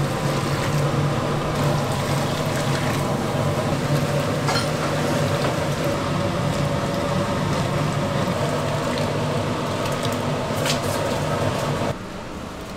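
Broth pouring and running into a large cauldron of seasoned greens, over a steady low hum. The sound drops off suddenly about a second before the end.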